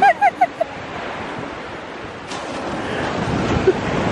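Small waves breaking and washing up a sandy beach, with wind buffeting the microphone. Right at the start comes a quick run of about five short, high calls.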